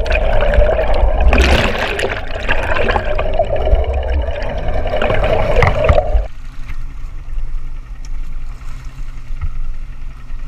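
Underwater sound through a GoPro's housing: muffled rushing, gurgling water with a steady hum. About six seconds in it cuts suddenly to the open air, where water sloshes and laps against the boat's hull.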